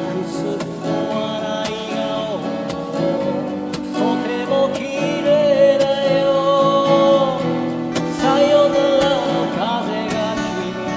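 Acoustic guitar accompaniment to a slow pop ballad, with a melody line on top that bends between notes and holds one long, wavering note in the middle.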